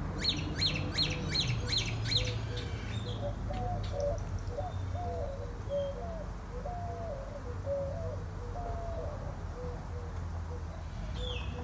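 Birds calling: a quick run of about seven sharp, high chirps that sweep downward, then a long series of lower, softer warbling notes, with one more high falling call near the end, over a steady low rumble.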